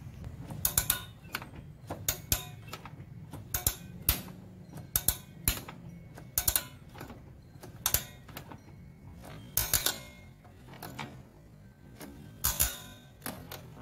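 Drum-brake automatic adjuster ratcheting: each time the parking-brake lever is worked, the adjuster lever clicks the star-wheel adjuster round a notch, giving about a dozen short clicks and click clusters at uneven intervals.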